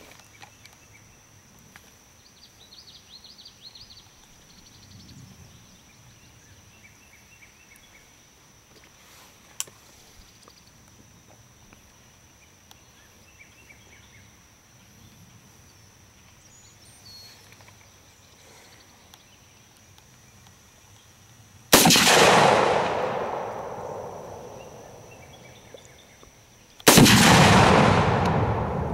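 Two shots from a Ruger SR556 .223 rifle, about five seconds apart, each a sudden loud crack followed by a long echo dying away over several seconds. Before them, faint chirping of birds or insects.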